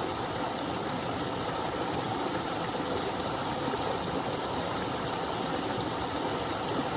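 Small waterfall: water cascading with a steady, even rush.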